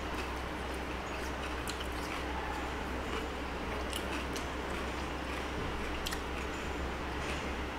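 Fingers mixing and squishing rice on a steel plate, with chewing and a few small sharp clicks, over a steady background hiss and low hum.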